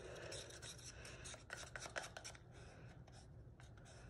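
Faint scraping and light taps as paint tools are handled over a wet acrylic pour painting, in a short cluster about a second in and a few more near the end.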